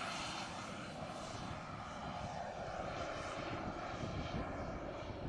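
Radio-controlled scale model jet's engine giving a steady rushing noise as the jet takes off and climbs away.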